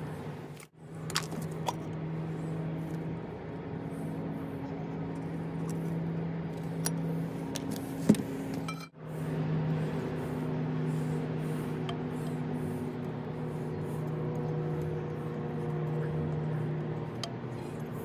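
Small metal parts of a vintage Dunlap jigsaw's gearbox clicking and clinking as they are handled and worked with a screwdriver: a few sharp clicks, the loudest about eight seconds in. Underneath is a steady low hum with a few held tones, which drops out briefly twice.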